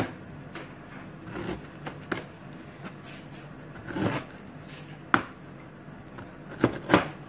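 Kitchen knife slicing fresh ginger on a plastic cutting board: irregular sharp knocks of the blade meeting the board, some a second or more apart, the loudest about five seconds in and twice near the end.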